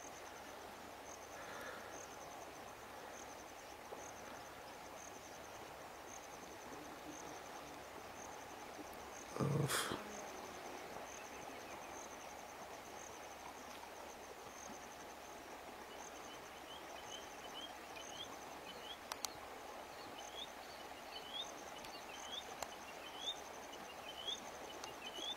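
Faint outdoor ambience: an insect trills in steady high pulses throughout, and from about two-thirds of the way in a bird repeats a short rising chirp roughly once a second. About nine seconds in there is a single short, loud bump.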